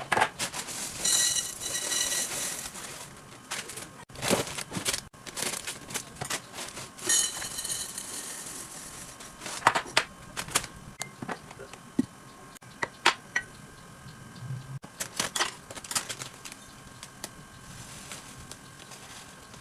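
Dry foods such as cereal, pasta and oats being poured from plastic packets into glass jars, with packaging crinkling and rustling and sharp taps and clicks of glass and lids being handled.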